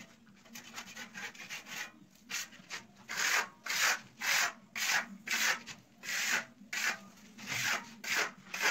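Steel spatula scraping across fresh travertine decorative plaster on a wall, smoothing the texture in repeated strokes about two a second. The strokes are faint at first and get louder after about three seconds.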